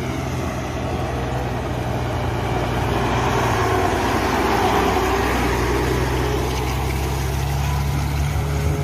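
Water tanker truck's diesel engine running as the truck drives slowly past, a steady low hum that grows loudest about four to five seconds in as it passes closest.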